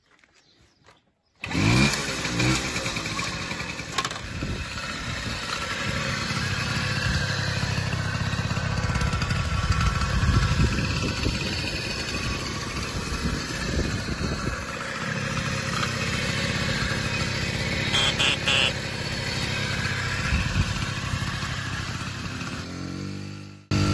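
A 1977 Negrini Harvard moped's 49cc two-stroke engine, coming in suddenly about a second and a half in and then running steadily on its stand.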